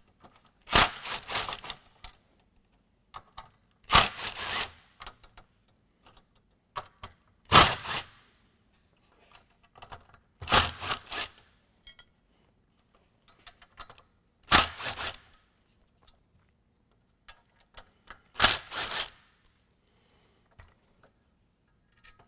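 Cordless drill-driver backing screws out of a plastic grille frame bar: six short runs of about a second each, a few seconds apart, with small clicks of loose screws and handling in between.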